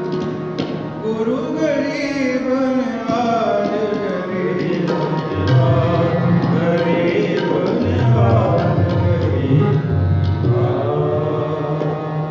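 Sikh kirtan: harmoniums sustain a melody under a gliding singing voice. Tabla bass strokes come in strongly about five and a half seconds in.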